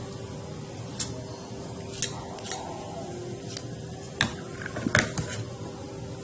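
Cake batter being stirred by hand in a mixing bowl, the utensil clicking against the bowl roughly once a second, with the loudest knocks about four and five seconds in.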